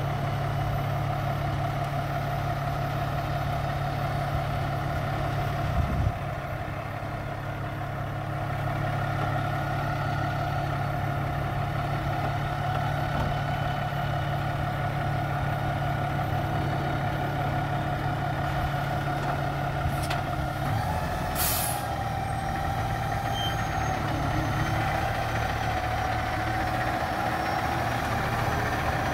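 Heavy diesel truck engine running with a steady drone, with a short hiss of air from its brakes about three-quarters of the way through, after which the engine note changes slightly.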